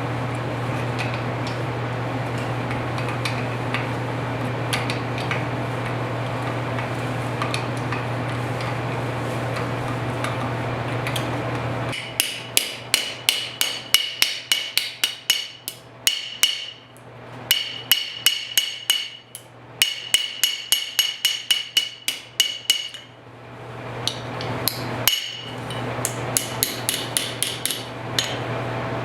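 A machine running steadily with a low hum and hiss for about the first twelve seconds, then a hammer striking metal in quick runs of ringing blows, several a second, with short pauses between runs: the bent motorcycle tail light bracket being hammered straight.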